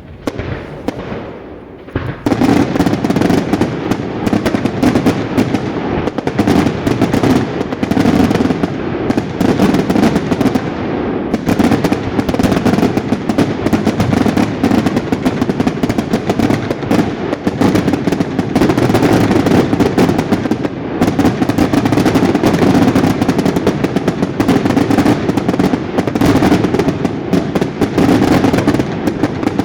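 A daytime fireworks barrage: a dense, unbroken volley of rapid bangs and crackling reports, like machine-gun fire. It starts abruptly about two seconds in, after a brief lull.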